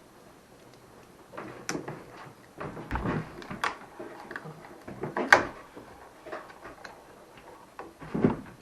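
Irregular knocks, clunks and clatters of hand construction work in a small room, with scattered bumps and a sharp knock about five and a half seconds in.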